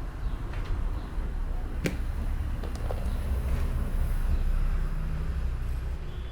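Hands rubbing and working over a person's head and skin in a massage, over a steady low rumble. One sharp click comes about two seconds in, with a few fainter clicks around it.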